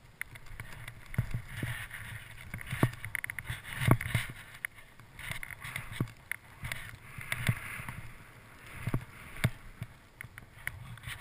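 Skis turning down a steep snow slope, heard through a helmet-mounted GoPro: uneven swishes of the ski edges scraping the snow, swelling and fading with each turn, mixed with scattered sharp knocks and clicks.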